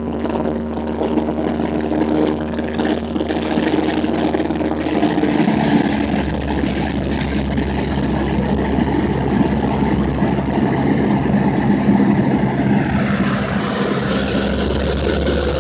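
Cessna 172's piston engine and propeller running steadily, heard from inside the cabin with airflow noise. The engine note shifts about five seconds in, and the sound changes again near thirteen seconds.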